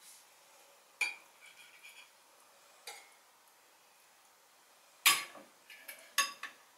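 Serving cutlery clinking and scraping against a ceramic oven dish and plate as food is dished out: a few separate sharp clinks, the loudest about five seconds in.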